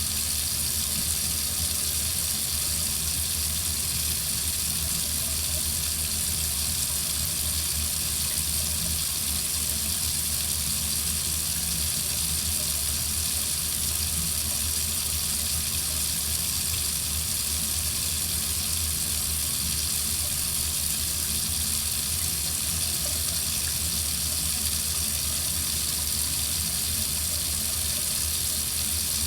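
Water running steadily from a faucet into a sink, a constant hiss.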